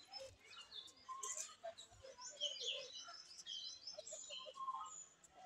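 Faint chirping of several birds: many short, quick high calls, some dropping in pitch, scattered throughout.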